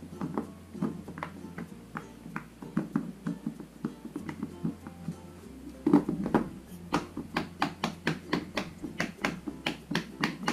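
Bubbles of a silicone pop-it fidget toy pressed one after another with a finger, a string of soft pops. They come unevenly at first, then quicker and more even, about three a second, from about two-thirds of the way in.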